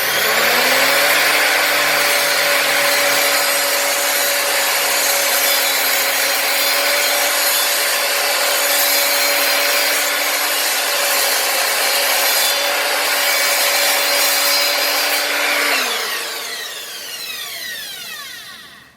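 Evolution R255SMS multi-material sliding mitre saw slide-cutting through a dense MDF-type board. The motor comes up to speed at the start and runs steadily with loud cutting noise for about sixteen seconds. It is then released and its whine falls as the blade spins down.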